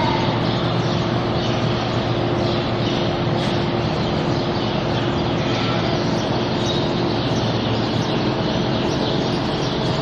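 Large drum barn fan running, a steady rush of air with a faint constant hum.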